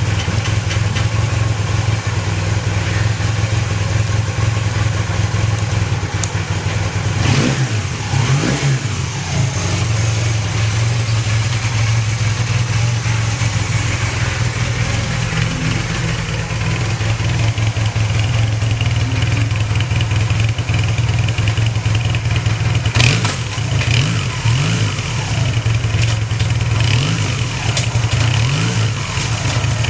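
Honda CB450N parallel-twin engine idling steadily, with a quick throttle blip about a quarter of the way in and a run of short blips near the end. It settles back to an even idle each time, with no abnormal noise: the sign of a healthy engine.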